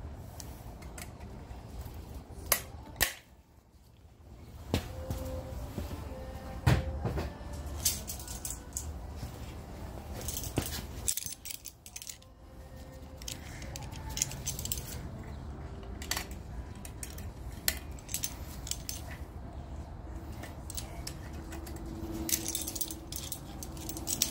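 Sharp metallic clicks and clinks of needle-nose pliers and a small steel coil spring being hooked onto drum brake shoes, scattered irregularly. The loudest come about two and a half and three seconds in and near seven seconds, over a low steady hum.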